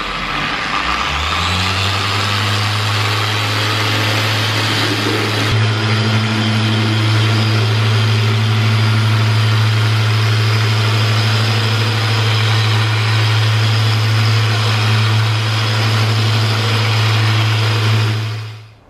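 Makita PO6000C forced-rotation polisher with an orange medium-cut pad working compound into a car's paintwork. Its motor rises in pitch about a second in, then runs loud and steady until near the end.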